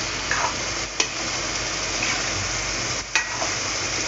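Vegetables in coconut paste bubbling and sizzling in a metal pan, cooking down to dry off their water, as a metal ladle stirs through them. The ladle knocks sharply against the pan twice, about a second in and again near three seconds in.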